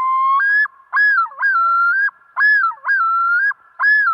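Recording of a male common loon's yodel. A long rising note steps up in pitch, then the call breaks into repeated wavering two-part phrases, about three of them. This is the territorial-defence call that only males give.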